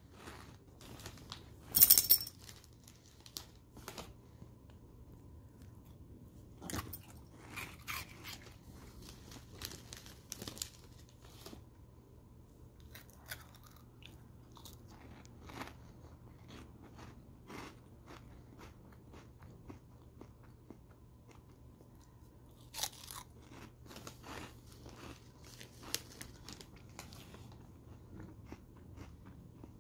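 A person crunching and chewing Cheetos close to the microphone, in scattered bites, with a louder crackle about two seconds in.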